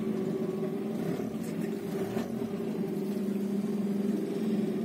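Glass-bottom boat's engine running with a steady, even hum, heard from inside the boat.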